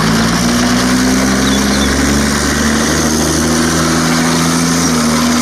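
A motor running steadily, with a loud hiss over it.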